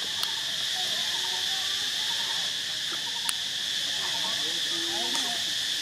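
Steady insect chorus, an even high-pitched drone, with faint wavering calls underneath and a couple of light clicks.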